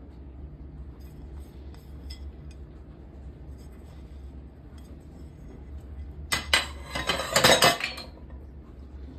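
Dishes clattering: a quick run of sharp clinks and knocks lasting under two seconds, about six seconds in, with a few faint clicks earlier. A low steady hum lies underneath.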